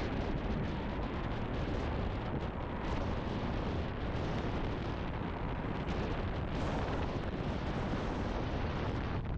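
Wind buffeting the microphone, a steady rushing noise with a deep rumble.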